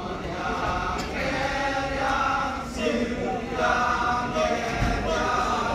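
Balinese kecak chorus: a circle of men chanting together in phrases about a second long.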